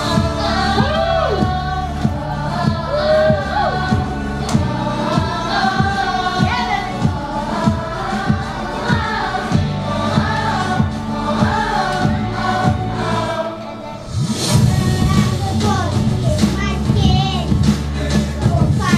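A song sung by several voices in chorus over a steady beat. It drops away briefly about fourteen seconds in, then comes back fuller.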